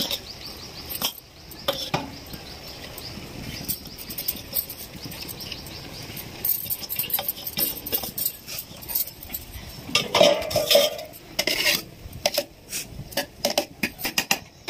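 Metal dish scraping and clinking against the rim of a large aluminium cooking pot as parboiled rice is tipped and scraped into it. The clinks and scrapes come irregularly and are busiest around ten to twelve seconds in.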